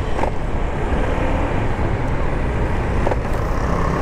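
Wind rumble on the microphone over a Honda PCX 160 scooter's single-cylinder engine running at road speed. Two brief tones sound about three seconds apart.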